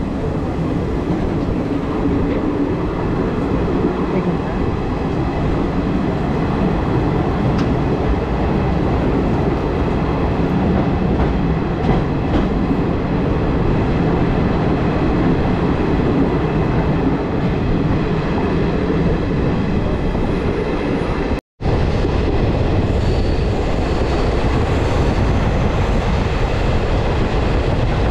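Passenger train running, heard from its open doorway: a steady loud rumble of wheels on the track and rushing air as the coach passes through a rock tunnel. The sound cuts out for a split second about three-quarters of the way through.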